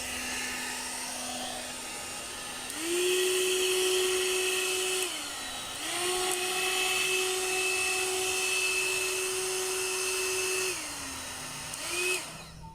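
One-step hot-air brush (hair dryer brush) running: a steady motor whine with airflow hiss. Its pitch jumps up for a few seconds and drops back twice, rises briefly once more, and then the whine stops near the end as it is switched off.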